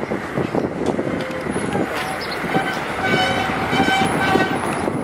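Car driving along a town street, its road and engine noise heard from inside the car, with a vehicle horn sounding for about a second and a half in the second half.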